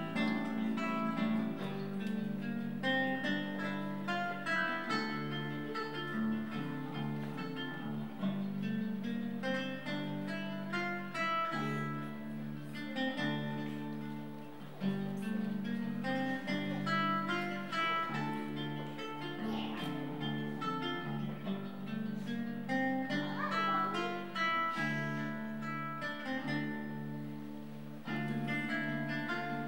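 Instrumental music with a quick, continuous run of plucked-string notes over held low tones.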